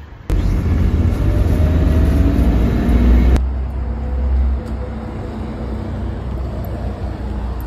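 City street traffic noise: motor vehicle engines running with a loud low rumble. It starts suddenly just after the start, changes abruptly a little over three seconds in, and then settles into a steadier, quieter rumble.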